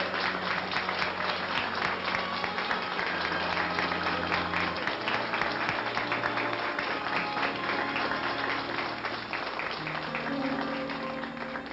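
Audience applauding over a band playing held chords. The applause dies away near the end as the band plays on.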